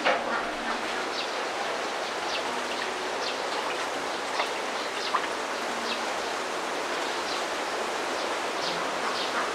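Outdoor ambience: short bird chirps scattered over a steady rushing hiss, with two sharp ticks near the middle.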